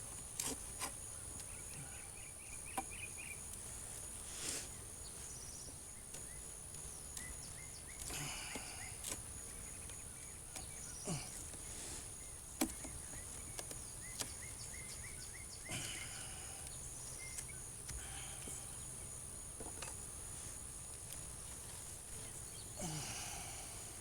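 Steady insect chorus outdoors: a continuous high-pitched buzz with a fast pulsing chirp just below it. Scattered sharp clicks and a few brief rustles from handling the hive break through it.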